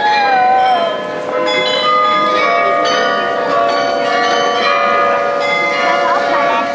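The bells of the Marienplatz Glockenspiel in Munich's New Town Hall tower playing a tune, many ringing notes overlapping and sustaining into one another. A voice rises and falls near the start, over the murmur of onlookers.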